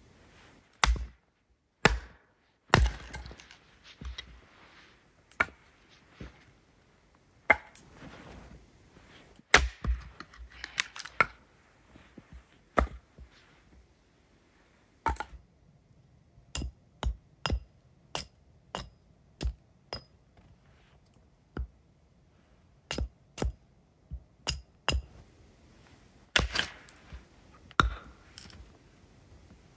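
A hatchet splitting firewood on a wooden chopping block: a long run of sharp strikes at irregular intervals, some coming in quick pairs.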